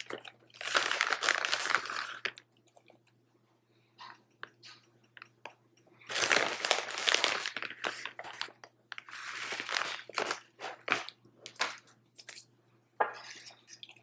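Plastic bag of shredded mozzarella crinkling as it is handled and shaken out over a mug, in three longer bursts of crackling, the loudest about halfway through. A few short light clicks follow near the end.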